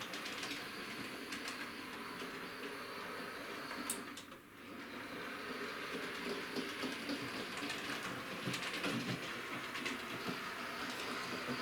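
Hornby model locomotive running along model railway track: a steady motor whirr with the wheels clicking over rail joints and points. The sound drops away briefly about four seconds in, then picks up again.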